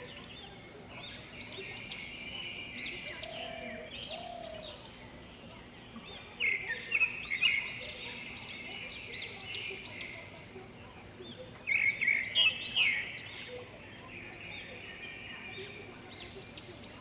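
Bird chirping: quick series of high chirps, in two louder bursts about six and twelve seconds in, with softer chirps between.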